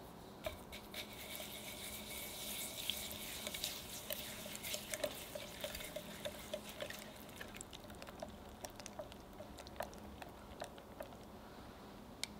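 A silicone-coated whisk stirring an egg, sugar and honey mixture in a glass bowl set over a pot of hot water, warming the eggs for a sponge batter. Wet swishing with light taps of the whisk against the bowl, busiest in the first half and thinning to scattered taps near the end.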